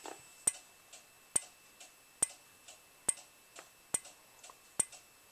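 Simplex 4903-9146 speaker strobe's xenon strobe flashing, a sharp click with each flash a little more than once a second, with a fainter tick between flashes and a faint steady high-pitched whine.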